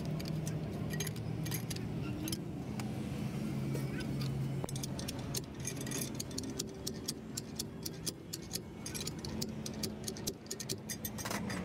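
Metal hand tools clicking and clinking against a heavy truck's wheel hub as the hub nut is worked with a box spanner and tommy bar, the clicks quickening to about three or four a second in the second half, over a steady low hum.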